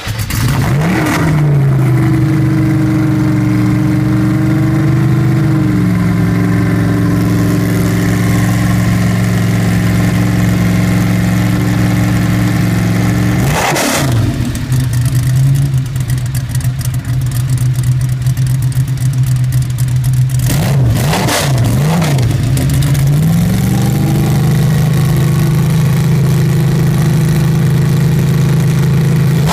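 Maserati 450 S racing V8 idling loudly and steadily. It gives a quick throttle blip about a second in and another about halfway through, then several quick revs a few seconds later before settling back to idle.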